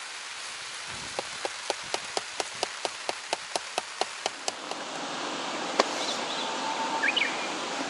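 Rain falling steadily, with a quick, even run of about sixteen sharp ticks, roughly four a second, in the first half. Near the end come a single sharper click and a few short bird chirps.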